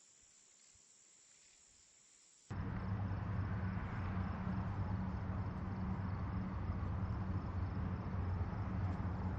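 A faint, steady high-pitched insect trill, cut off suddenly about two and a half seconds in by a loud, steady low rumble with a hum, like a running engine.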